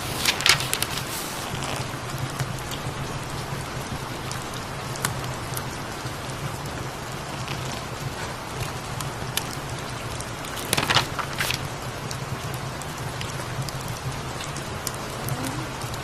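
Steady rain with a crackling fireplace and a low, continuous cat purr underneath. A book page is turned with a papery rustle about half a second in, and again about 11 seconds in.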